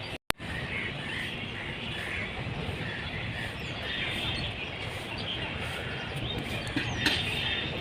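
Small birds chirping in scattered short calls over a steady low background rumble. The sound cuts out completely for a moment just after the start, and there is a sharp click about seven seconds in.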